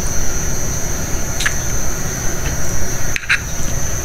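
Steady hiss and low rumble of a lit gas stove burner under a small frying pan of eggs, with two faint clicks, one about a second and a half in and one near the end.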